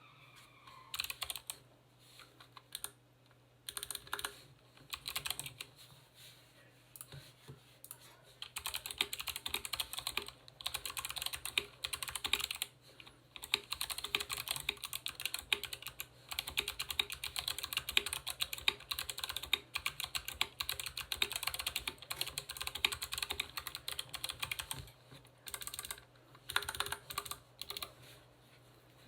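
Typing on an Anne Pro 2 mechanical keyboard with Kailh Box White clicky switches and PBT keycaps: rapid crisp key clicks, first in short bursts, then fast continuous typing for most of the time, then a few more bursts near the end.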